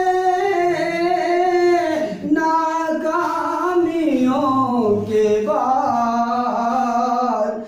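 A man singing a line of an Urdu ghazal, holding long drawn-out notes that slide down in pitch from phrase to phrase, with a brief breath about two seconds in.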